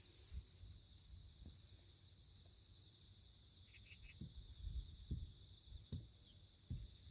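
Faint, steady chorus of crickets chirring in the grass, with wind buffeting the microphone in low rumbles that grow gustier in the second half.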